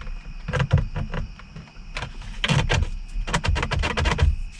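Irregular clusters of sharp clicks and knocks: a steering wheel's airbag module being handled and pressed into place, its clips a tight fit.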